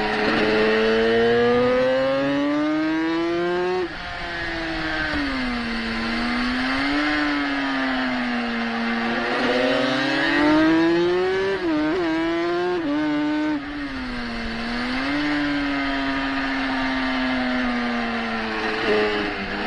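A 350 racing motorcycle's engine, heard from on board, revved hard on track. The revs climb, drop suddenly at each gearshift, and dip and pick up again through the corners.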